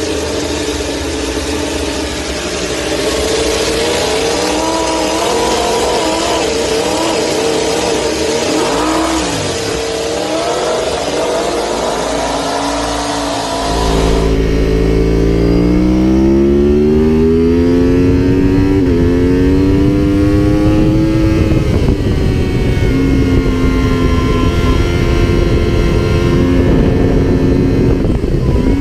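Cross-plane inline-four motorcycle engines. For about the first half, a Suzuki GSX-RR race bike's engine is revved up and down while standing still. Then a Yamaha YZF-R1's 998 cc engine accelerates hard, its pitch rising in long sweeps before holding a steady note near the end.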